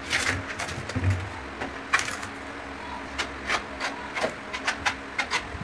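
Irregular clicks and knocks of a large ceramic tile being handled and set by hand on a concrete kitchen counter slab, over a faint steady low hum.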